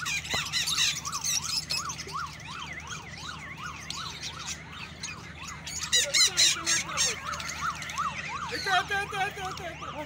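A siren yelping, its pitch rising and falling about three times a second, over the shrill chirping of many caged lovebirds.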